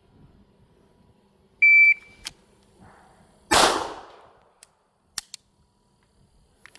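A shot timer's start beep, then about two seconds later a single pistol shot from a Beretta 92 fired double action, which the timer reads as 1.92 seconds. A few faint clicks follow.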